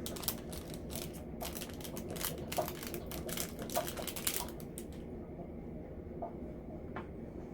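Quick, light clicks and rattles of small plastic diamond-painting drills and their bags being handled. The clicking is busy for the first four seconds or so, then thins to a few scattered clicks.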